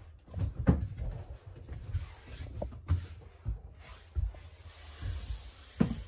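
Footsteps walking down into the living area of a fifth-wheel trailer: a run of dull, low thumps on the floor and steps, irregular, about one or two a second.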